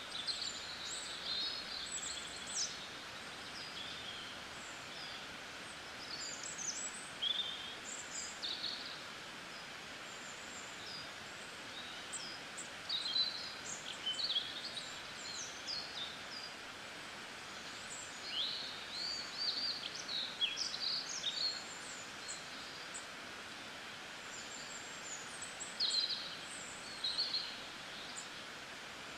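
Steady hiss of rain, with many small birds chirping over it in short, high calls that come in clusters every few seconds.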